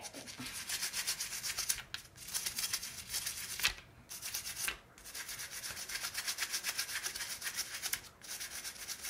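Soapy toothbrush bristles scrubbing a plastic Schleich horse figurine in quick, rhythmic circular strokes, broken by a few short pauses.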